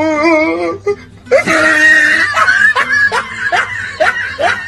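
A drawn-out, wavering voice, then after a break a loud scream followed by a run of short rising yelps of laughter, about two to three a second.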